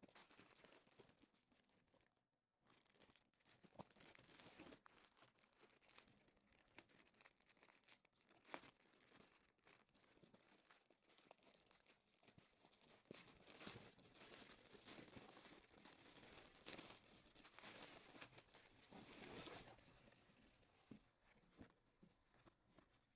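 Faint crinkling and rustling of a clear plastic packaging bag as it is handled and opened, with a few sharper crackles.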